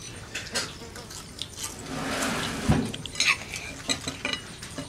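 Spoons and cutlery clinking and scraping against ceramic bowls and plates during a meal, in scattered short clicks. About two seconds in there is a short hissy stretch, with a single low thump in the middle of it.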